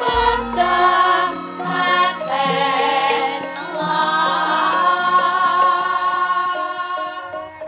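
Javanese gamelan ensemble playing, with a sinden singing a long wavering vocal line over the metallic tones; the music thins out near the end.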